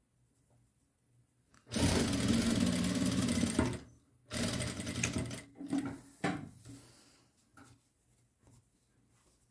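Jack industrial lockstitch sewing machine stitching in two runs, the first about two seconds long and the second a little over a second, with a brief stop between them and a short burst after.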